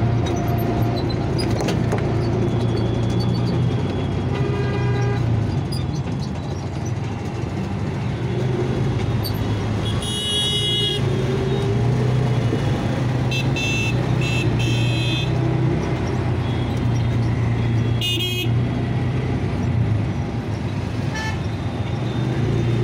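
Road traffic heard from a moving vehicle: a steady engine hum with road and wind noise, and vehicle horns tooting several times, including a quick run of three toots a little past the middle.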